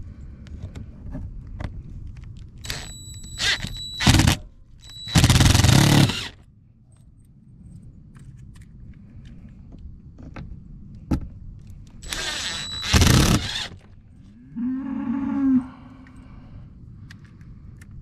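Cordless impact driver driving screws through a diamond-plate metal wall into pilot holes, in three bursts of whirring and hammering: two close together early on and a third about two-thirds through. A brief low call follows the last burst.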